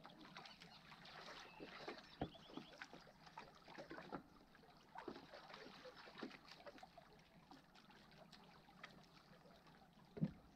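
Small waves lapping and splashing faintly among shoreline rocks, irregular and soft, with scattered light clicks and a single knock about two seconds in.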